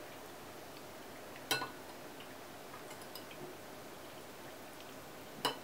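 Metal spoon clinking against a bowl of borscht twice, about a second and a half in and again near the end, with a few faint small ticks between.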